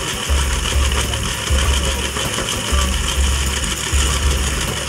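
A LEGO electric motor runs a wheel-driven turntable, its drive wheel spinning the round section between two guide wheels. It is a steady mechanical running noise with an uneven low hum that swells and drops.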